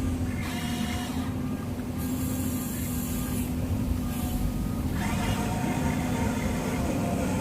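Small electric motors and gearing of a radio-controlled model construction vehicle running with a steady hum.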